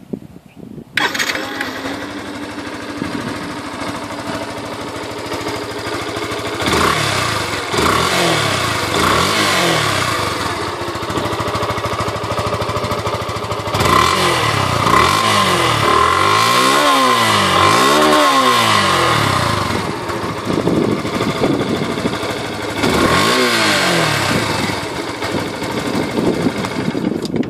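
Yamaha FZ-S V2.0's air-cooled single-cylinder fuel-injected engine starting about a second in and settling to idle. It is then revved repeatedly in short blips, each rising and falling in pitch, with a quick run of blips in the middle.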